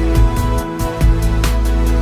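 Instrumental background music: held chords over heavy bass, with a regular beat.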